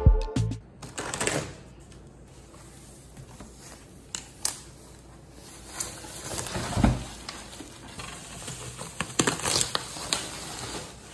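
Plastic wrapping around a boxed air fryer rustling and crinkling as it is pulled back by hand, with irregular small clicks and handling noises. One dull thump comes about seven seconds in.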